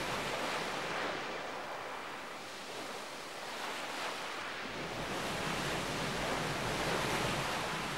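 Sea waves washing in and drawing back: a steady rushing hiss that swells and ebbs every few seconds.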